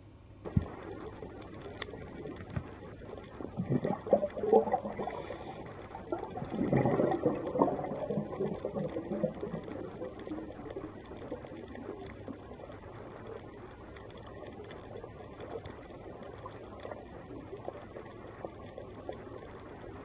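Underwater recording: a steady hiss of water with scattered clicks, and two louder spells of bubbling and gurgling about four and seven seconds in.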